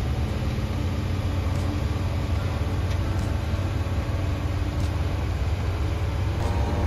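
Steady low rumble of engine and road noise inside a converted old school bus cruising on a highway.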